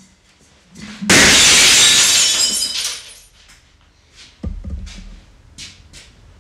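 A loud crash about a second in, ringing briefly and dying away in under two seconds, followed by a heavy thump a few seconds later, with short scuffing noises between.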